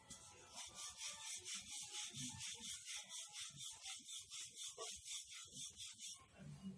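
Wooden rolling pin rubbing back and forth over a floured rice-flour roti on a flat board, a quick even run of hissy strokes about five a second that stops near the end.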